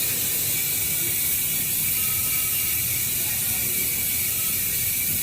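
Freewheeling rear bicycle hub, a six-pawl Speedone Pilot with a carbon shell, buzzing with fast, steady ratchet clicking as the wheel spins hard.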